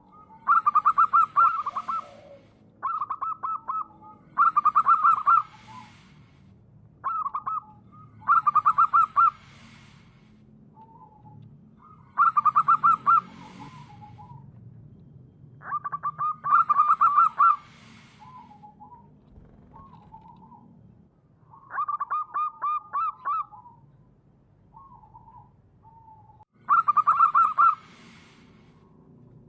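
Zebra dove (perkutut) of a local wild strain cooing: repeated phrases of fast staccato notes, each about a second long and coming every few seconds, with softer single coos in between.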